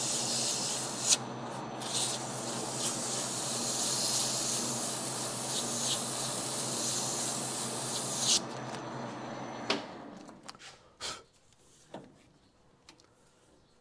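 Strip of 3M abrasive cloth, about 220 grit, pulled against the rim of a 1977 Suzuki RM125 crankshaft flywheel spinning in a lathe: a steady sanding hiss over the hum of the lathe, smoothing down rust pitting. The sanding stops about eight seconds in, the lathe runs down a second or so later, and a few light handling clicks follow.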